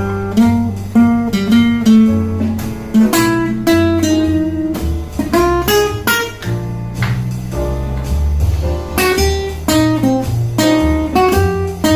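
Acoustic guitar played fingerstyle: a melody of single plucked notes over ringing low bass notes.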